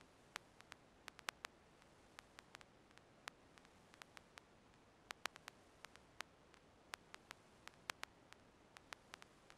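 Faint hiss with scattered sharp clicks, irregular, a few each second, like static crackle.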